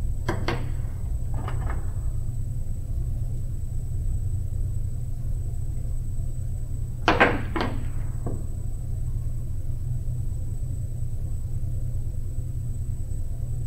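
Wire strippers and speaker wire handled on a tabletop: a few light clicks and rustles near the start, then a sharp knock about seven seconds in as the strippers are taken up, over a steady low hum.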